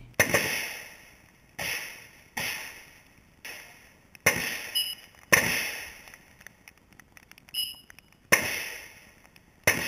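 Gunshots on an outdoor range: about eight sharp reports at irregular intervals, each dying away over about a second. Twice a short thin metallic ring follows a report.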